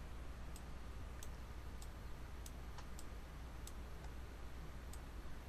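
Faint light clicks, about one every half second with a short gap about four seconds in, over a low steady hum: a computer mouse being clicked while navigating a map on screen.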